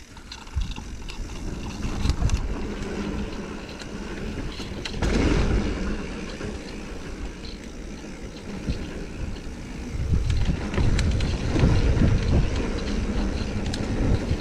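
Mountain bike rolling down a dirt singletrack trail: tyres rumbling over the ground with scattered clicks and rattles from the bike, plus wind rumble on the microphone, getting louder about ten seconds in as speed picks up.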